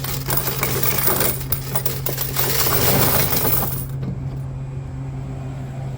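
Loose coins jingling and clattering as change is taken out of a vending machine's coin box, stopping about four seconds in. A steady low hum runs underneath.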